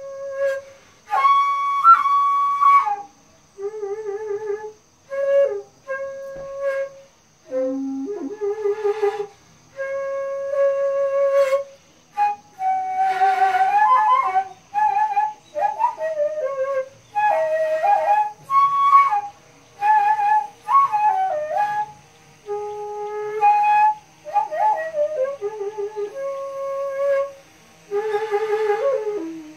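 Daegeum, the Korean large transverse bamboo flute, played solo: a slow melody of long held notes that bend and slide in pitch, broken by short pauses, with a few breathier, rougher notes in places.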